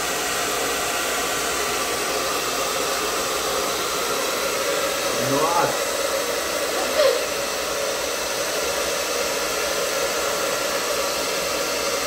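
Handheld hair dryer running steadily, its air stream blowing a ping-pong ball up toward a small basketball hoop.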